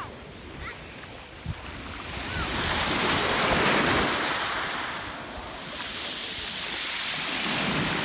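Small waves breaking and washing up over a pebble beach, the rush of surf swelling twice: once about two to four seconds in and again near the end.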